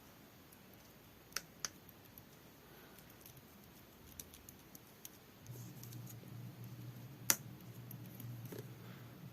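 Faint sticky clicks and small pops of pink clear slime being handled, a few at first and more often from about halfway, with one sharper click near the end. A low steady hum comes in about halfway.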